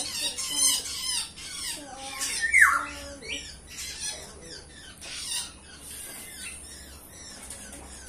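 Caged birds chirping over and over in short, high calls, with one louder falling squawk about two and a half seconds in.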